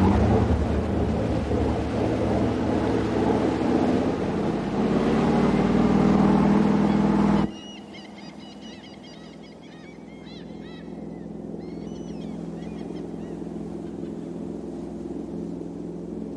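An engine running loudly with a slowly rising pitch, which cuts off abruptly about seven seconds in. It gives way to a quieter steady low hum with short bird chirps over it.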